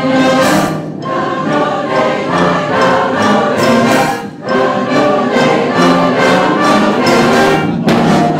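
A large amateur community choir singing a contemporary choral piece, backed by a youth band, with repeated sharp percussive hits through it. It was recorded on an iPhone, so the sound is not very clear.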